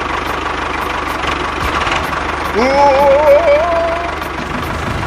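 An engine running steadily at idle with an even, rapid knock. About two and a half seconds in, a louder voice-like sound rises in pitch and wavers for over a second over it.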